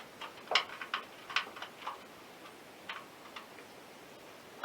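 Irregular light clicks and knocks of metal parts being handled and worked into place on a sawmill outrigger, a quick cluster in the first two seconds, then a few scattered taps.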